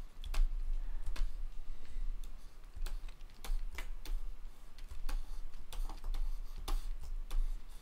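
Irregular, sharp clicks of a computer mouse and keyboard being operated, scattered a second or so apart.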